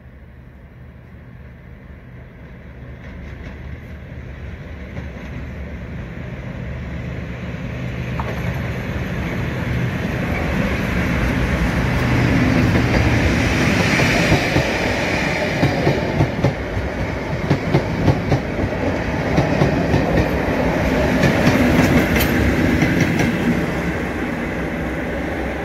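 Network Rail test train hauled by Class 37 diesel locomotives passing at speed. The leading locomotive's engine grows steadily louder as it approaches and goes by. The wheels then clatter over rail joints as the coaches pass, and the trailing locomotive's engine comes by near the end.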